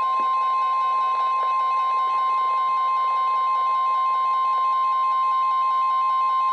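NOAA Weather Radio 1050 Hz warning alarm tone, one steady high tone held without a break, sounding as the attention signal before a Special Marine Warning.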